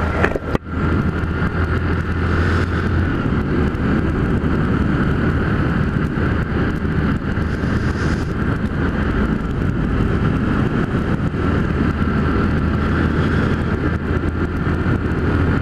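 Motorcycle engine running steadily while riding at road speed, with wind and road noise over it; the sound briefly dips about half a second in.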